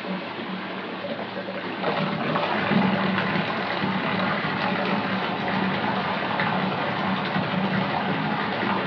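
Bathtub filling: water running steadily from the tap into the tub, growing louder about two seconds in.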